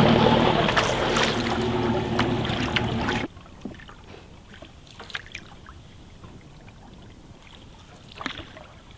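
Motor cruiser passing close by, its inboard engine running steadily over the hiss of water, until the sound cuts off suddenly about three seconds in. After that it is quiet outdoor ambience with a few faint ticks.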